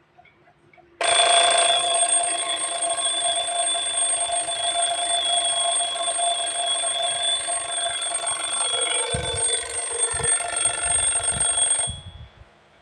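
Vintage alarm clock ringing loudly and steadily, starting suddenly about a second in and cutting off abruptly near the end, with a few low knocks in its last few seconds. Faint regular ticking of the clock before the ring begins.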